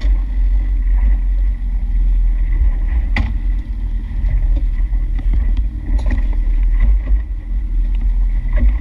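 Steady low rumble of wind and boat motor noise aboard an aluminum fishing boat at sea, with two sharp knocks, about three and six seconds in.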